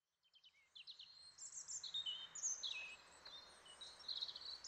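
Songbirds chirping and twittering faintly, many short high calls overlapping one another.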